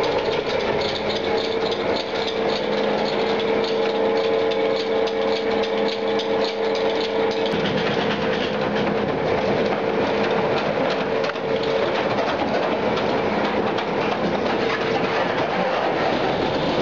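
Roadheader cutting at the face: continuous loud grinding and rattling from the cutter head, with a steady motor whine. A lower hum drops out about halfway through.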